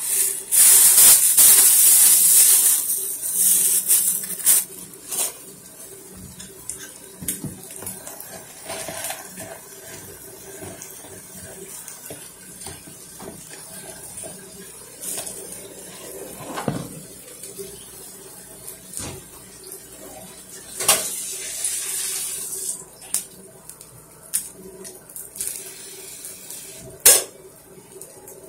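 Kitchen clatter: scattered clinks and knocks of dishes and utensils over a steady hiss that is louder for the first few seconds.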